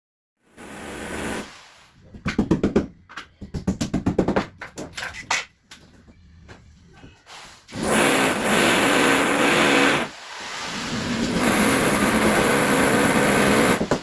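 Electric woodworking power tool running in two long, steady bursts, stopping briefly between them, after a quick run of sharp knocks.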